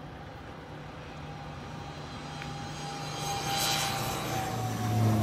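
Crop-dusting airplane's engine drawing nearer, growing steadily louder, its tone dropping slightly in pitch near the end as it comes close.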